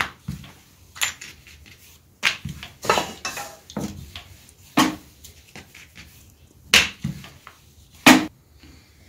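Wooden rolling pin rolling out a thick disc of stiff dough on a wooden chopping board: a soft rub broken by irregular sharp clicks and knocks, about eight of them.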